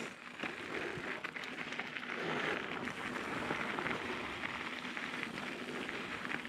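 Mountain bike's knobby tyres rolling over loose gravel and dirt: a steady crackling crunch with many small clicks and rattles.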